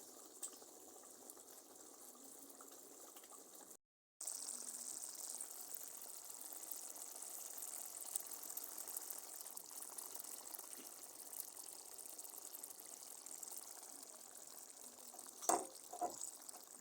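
Tomato sauce simmering in a pot: faint, steady bubbling with many small pops. A couple of short knocks come near the end.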